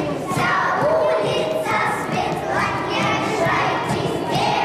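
A large group of young children chanting together, in short shouted phrases about a second apart.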